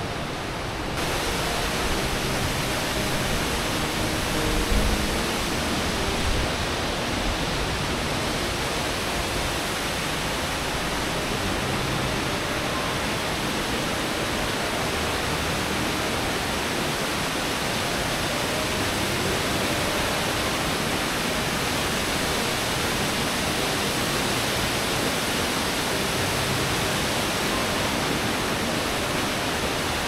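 Rushing water of a rocky mountain stream, a steady loud rush with no break. A couple of low knocks come about five and six seconds in.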